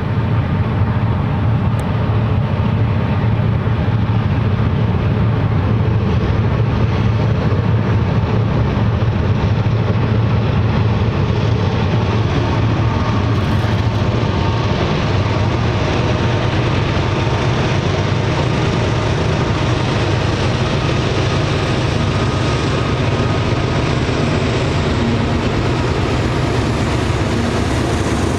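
Several Union Pacific diesel-electric locomotives running under power at the head of a freight train, a loud, steady, deep engine drone.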